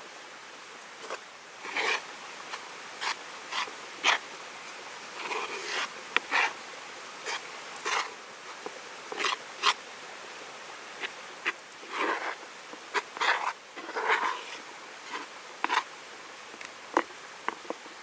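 Fingers and a metal spoon stirring and scraping flour and water in a bowl, mixing sujebi dough by hand. Irregular short scratchy rustles, with sharp clicks where the spoon knocks the bowl.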